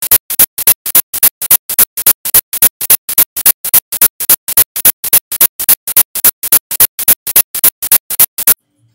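A rapid run of identical short, sharp, hissy electronic bursts, about four a second, evenly spaced and all equally loud. It stops abruptly about eight and a half seconds in.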